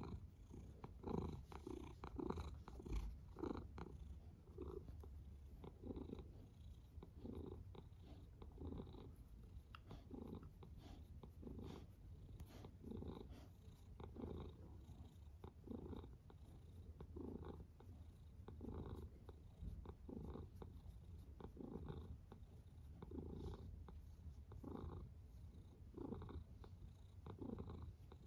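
Domestic cat purring steadily, the purr swelling and fading with each breath a little under once a second.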